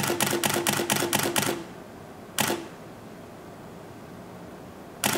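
Canon 6D DSLR shutter and mirror firing a continuous burst of about nine frames, roughly five a second, then slowing to single clicks a few seconds apart. The burst buffer has filled and the camera can only fire as fast as it writes to a slow old SanDisk card rated at 30 megabytes per second.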